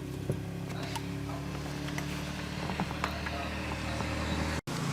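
A motor running steadily with a low, even hum that grows a little louder, and a few light clicks over it.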